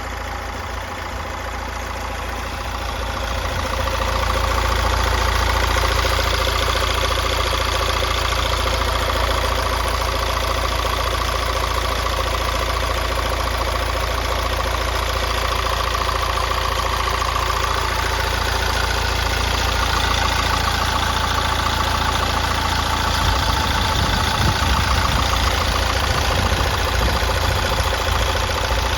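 Mercedes C180d's OM626 1.6-litre four-cylinder diesel idling steadily at 195,000 km, growing louder about three seconds in.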